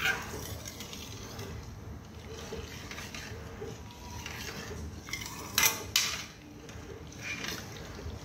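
Metal spoon stirring milk in a metal kadhai, scraping lightly around the pan, with a clink at the start and two sharp clinks of spoon against pan a little over halfway through.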